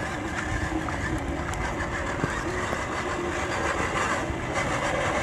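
Redcat Gen 8 RC crawler's electric motor and gears running as it drives along a wet, muddy trail, under a steady rushing noise, with a few light clicks.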